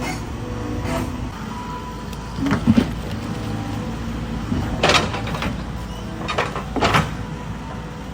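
Excavator engine running steadily, with several short scrapes and clanks from the bucket working stony ground that it can barely dig.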